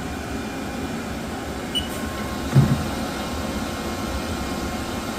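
Steady running hum of a 1999 Haas SL20 CNC lathe. A short high control-panel key beep comes about two seconds in, and a brief low clunk follows about half a second later as the turret homes, now returning to its correct home position.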